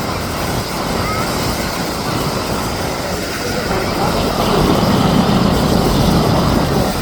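Canadair CL-415 water bomber's twin turboprop engines, a steady low rumble that grows louder about four seconds in as the aircraft comes nearer.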